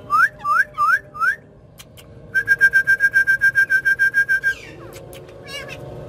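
Parakeet whistling: four quick rising whistles, then a rapid pulsing trill held on one high pitch for about two seconds, then a few short chirps.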